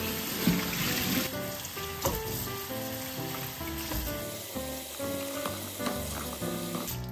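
Kitchen tap running into a stainless steel bowl of peppers and tomatoes as hands rub them clean, a steady splashing hiss that stops near the end. Soft background music plays throughout.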